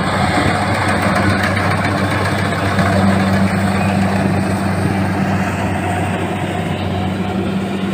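Kubota rice combine harvester's engine running steadily with a low hum, growing slightly fainter toward the end as the machine moves off.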